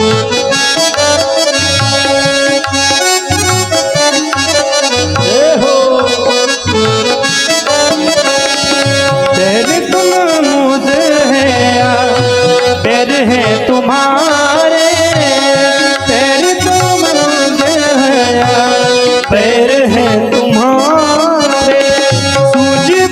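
Instrumental interlude of a Hindi devotional song: a harmonium-like reed keyboard holds a steady drone over a steady tabla rhythm. A melody with sliding notes comes in about five seconds in and weaves above it.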